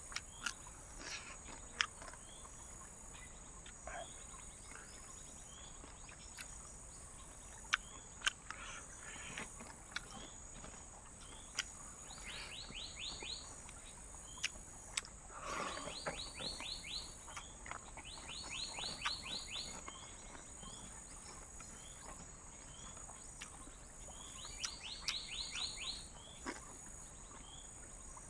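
Night jungle ambience: a steady high-pitched insect drone, broken four times by a rapid run of about ten pulsed calls from an animal, with scattered sharp clicks.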